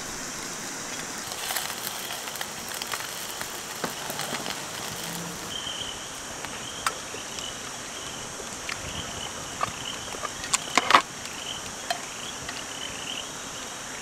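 Night ambience of a streamside camp: a steady hiss of running stream water and insects, with a repeated chirping call joining about halfway. Scattered sharp clicks, the loudest a quick cluster of knocks about three-quarters through.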